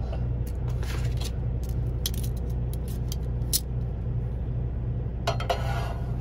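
Steady low hum of the semi truck's idling engine, with several light metallic clicks and clatters from stainless steel tongs being handled and set down in an electric skillet.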